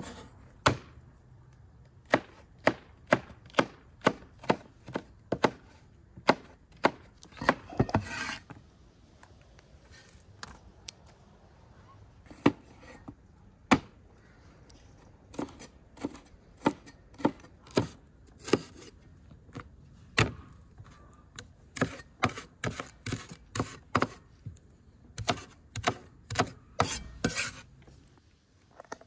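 Cleaver chopping bell peppers and onions on a wooden cutting board: sharp knocks of the blade hitting the board, in quick runs of several a second with pauses between. A longer scraping sound comes twice, once about eight seconds in and once near the end.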